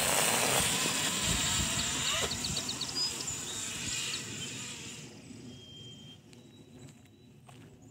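Talaria MX3 electric dirt bike on a 72-volt battery accelerating hard away, its motor whine and knobby-tyre noise loud at first and fading with distance over about five seconds.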